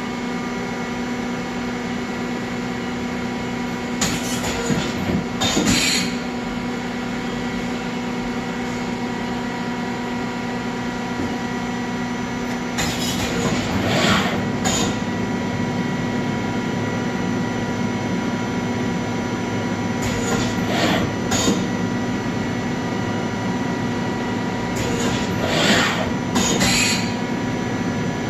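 Mori Seiki ZT 1000Y CNC lathe running with a steady hum of several fixed tones while its lower turret indexes four times. Each index is a short burst of mechanical noise in two parts, about a second apart.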